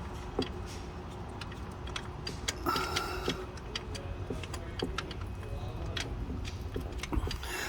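Scattered light metallic clicks and clinks from hand tools working a bolt below an alternator.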